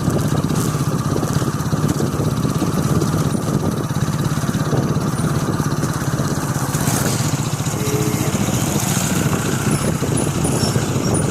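A vehicle engine running steadily, with a low pulsing hum and road noise.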